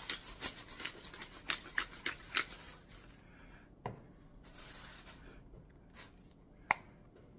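Black pepper grinder twisted by hand, a quick rasping grind about three strokes a second that stops after about two and a half seconds. Then a knock, a soft rustle and a single sharp click near the end.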